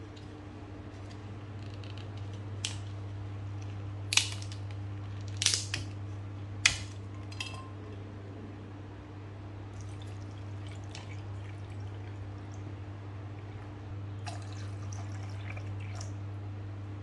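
Pieces of dried black fungus dropped into a glass dish, landing as a few sharp clicks against the glass a few seconds in, then water poured over them near the end. A steady low hum runs underneath.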